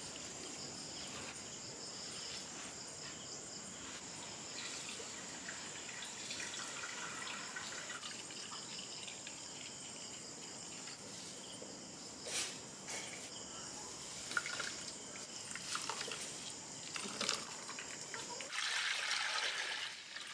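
Liquid trickling and dripping, with a few sharp clicks in the second half and a louder wash of noise near the end.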